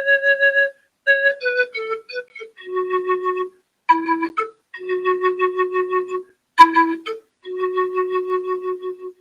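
Solo flute playing a slow, unaccompanied melody in short phrases of held notes that waver in loudness, with brief silences between the phrases. The last long note stops just before the end.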